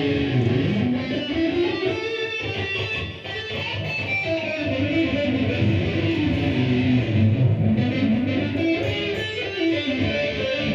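Electric guitar played as a melodic lead line, its notes sliding and bending up and down in pitch over a steady low part.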